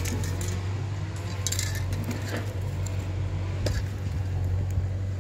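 A steady low hum with a few short clicks and clinks on top, the clearest about a second and a half in and just before the four-second mark.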